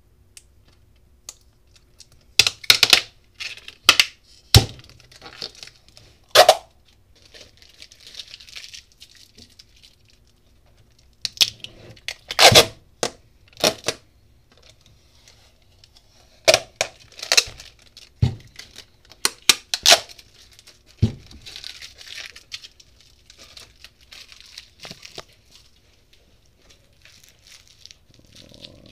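Clear adhesive tape and plastic wrap being peeled and ripped off the shrink-wrapped sub-packs of a battery pack: a series of sharp tearing rips in several spells, with crinkling of the plastic in between.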